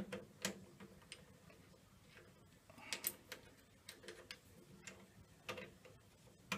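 Light, irregular clicks and short scrapes of a hand deburring tool working the edges of a metal workpiece held on a lathe mandrel.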